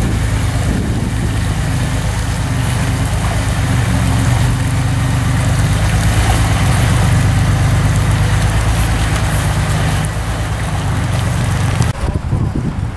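Lifted Ford Ranger pickup's engine running steadily under load as its tyres churn through a rocky creek crossing, with water splashing and rushing around the wheels. The sound cuts off about a second before the end to quieter wind noise.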